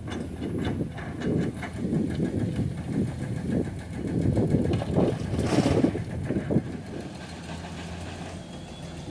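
Komatsu PC210 excavator's diesel engine running with uneven surges and irregular clunks and rattles, loudest about five and a half seconds in, then settling to a steadier, quieter run near the end.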